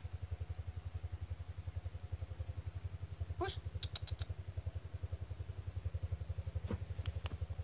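A small engine running steadily at idle, an even low chug of about ten beats a second, with a few faint clicks over it.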